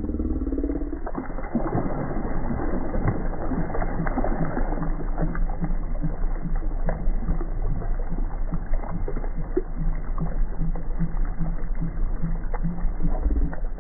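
Slowed-down splashing and sloshing of water as a hooked northern pike thrashes at the surface, deep and muffled with scattered knocks and a falling tone in the first second.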